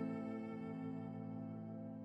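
Slow, soft instrumental background music: one chord held and fading gently.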